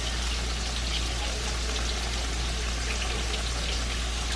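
Steady kitchen hiss over a low hum, with faint soft clicks as chunks of raw potato are cut off by hand with a knife and drop into a pot of green beans.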